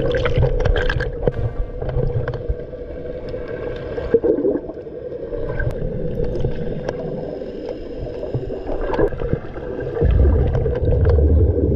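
Muffled underwater sound from an action camera held below the surface: a steady hum over low rumbling, with gurgling and scattered sharp clicks. The low rumble grows louder about ten seconds in.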